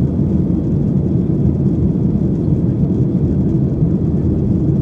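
Steady cabin noise inside a Boeing 737-900 climbing after takeoff: the low, even rumble of its CFM56 turbofan engines and the rush of air over the fuselage, heard through the cabin.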